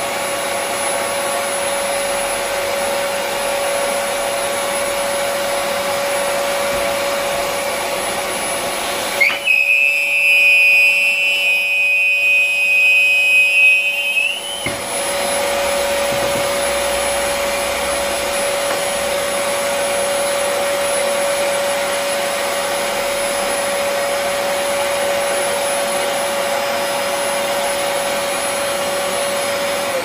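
Rowenta Compact Power Cyclonic vacuum cleaner running steadily. For about five seconds in the middle its running noise drops and a loud high-pitched whistle takes over, then the steady running returns. The technician traces the whistle to an air leak in the filter.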